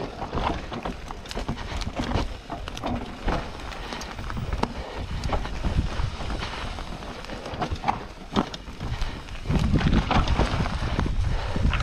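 Mountain bike riding down a rough dirt forest singletrack: tyres rolling over dirt, roots and stones, with frequent irregular clicks and knocks from the bike rattling over the bumps. A louder low rumble comes in over the last couple of seconds.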